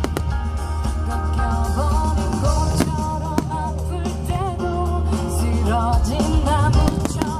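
Music with a singing voice holding wavering notes over a steady deep bass, loud throughout, with a couple of sharp cracks around three seconds in.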